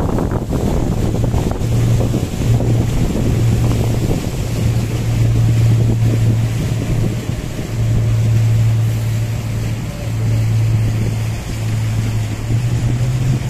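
Outboard engine of a RIB boat running under way, a steady low hum that rises slightly in pitch near the end, with wind buffeting the microphone and water rushing past the hull.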